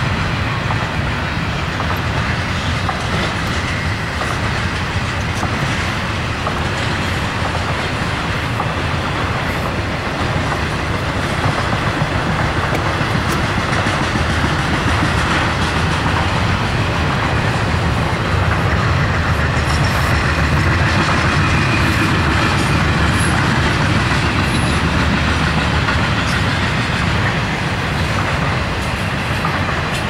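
Double-stack intermodal freight train's well cars rolling past, a steady, loud noise of steel wheels running on the rails.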